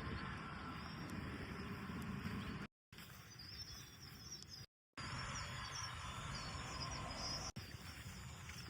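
Birds chirping over a steady low rumble, cut off abruptly to silence twice, briefly each time.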